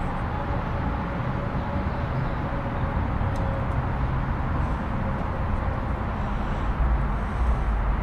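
Steady background rumble and hiss, with a couple of faint clicks.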